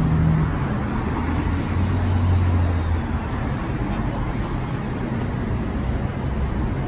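Busy city street traffic: a steady wash of engine and road noise, with a low engine drone that is strongest over the first few seconds, then eases.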